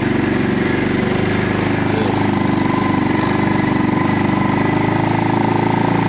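Segway Snarler 570 ATV engine running at a steady, low pitch while riding along a dirt track.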